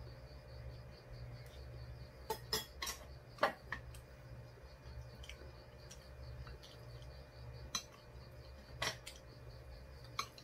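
Metal chopsticks and spoons clinking against ceramic bowls and side-dish plates while eating: a quick run of clinks a couple of seconds in, then single clinks spaced out later, over a faint steady pulsing high chirp.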